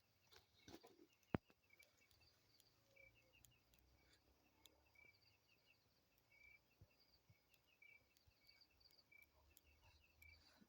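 Faint high chirps repeating in quick short runs, from a small animal, with a few light knocks in the first second and a half.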